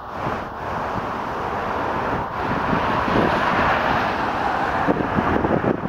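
Airbus A380 on final approach, its four Rolls-Royce Trent 900 jet engines making a steady roar that grows louder as the aircraft nears. A rougher, uneven low rumble comes in over the second half.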